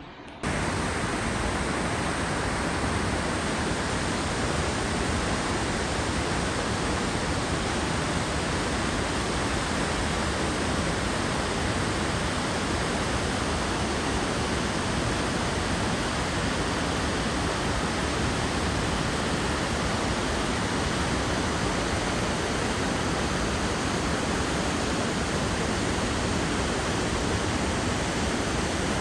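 A waterfall: the steady, even rush of a large volume of falling water, cutting in abruptly just after the start.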